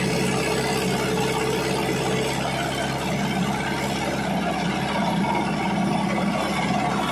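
A tractor's diesel engine running steadily.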